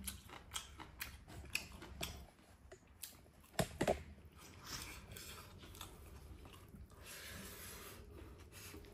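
Faint eating sounds: chewing, with small clicks and taps of fingers mixing rice on a plate, and two sharper clicks a little past three and a half seconds in.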